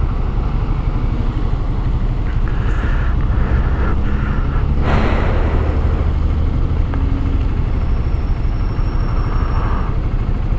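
Honda CG 160 Start's single-cylinder four-stroke engine idling while the bike waits at a light, with a steady low rumble. A brief rush of noise about five seconds in.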